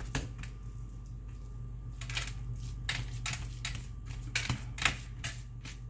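Hands patting and pressing raw ground meat into a loaf on a metal baking sheet, making irregular soft slaps, taps and clicks, with a cluster of them in the second half.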